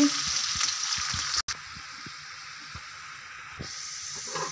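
Sliced onions frying in hot ghee in a pan, a loud steady sizzle that cuts off abruptly about a second and a half in. It is followed by a much quieter sizzle with occasional small crackles as the onions brown.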